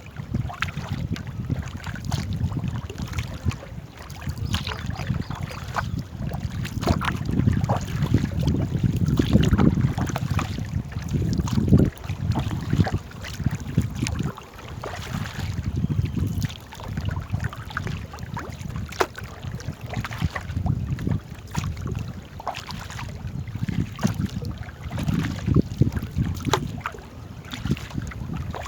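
Wind rumbling on the microphone over the water noise of a small paddled boat on a river, with scattered light clicks and knocks.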